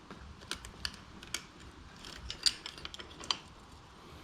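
Bicycle chain being taken off the chainring: a string of irregular, sharp metallic clicks and clinks from the links and the drivetrain.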